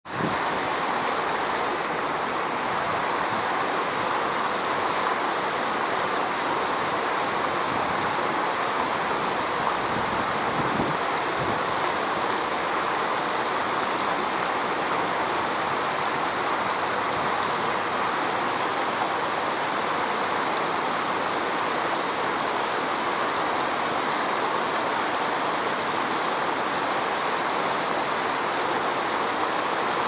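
Steady rush of flowing river water, an even hiss with no breaks.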